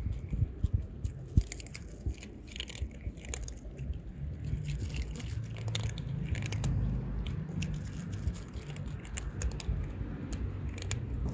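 Cats eating dry kibble close up: quick, irregular crunches as they chew the pellets, over a low background rumble.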